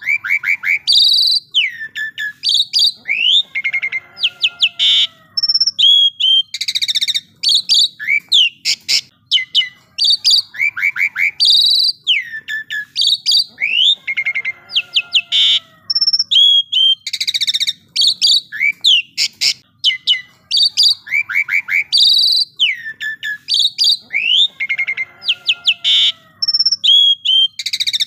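Asian pied starling (jalak suren) singing loudly: a fast, varied run of rising and falling whistles, sharp calls and harsh chatters. The same sequence of phrases repeats about every ten seconds, as a looped master recording.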